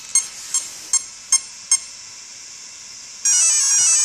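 Mamba Monster 2 brushless ESC power-up tones, sounded through the motor as the ESC is switched on and arms. A row of short beeps about 0.4 s apart, then a longer, louder tone near the end.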